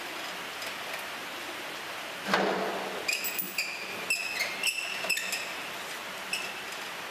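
Steel cattle crush being worked by hand: a heavy thump about two seconds in, then a quick run of short, ringing metallic clinks over a steady background hiss.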